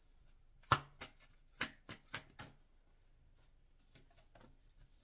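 Tarot cards handled on a tabletop: a quick run of about six sharp taps and slaps of cards against the table in the first half, the first the loudest, then a few faint clicks near the end.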